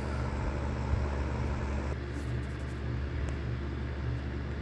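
Steady low hum of a running heating unit, a constant drone with overtones, with one faint click about a second in.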